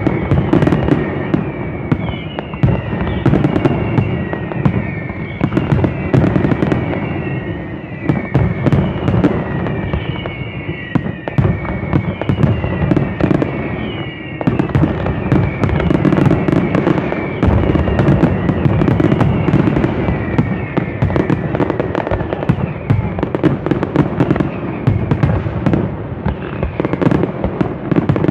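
Fireworks display going off in a dense, continuous barrage of bangs and crackling. Over the first half, short high whistling glides repeat about every second and a half.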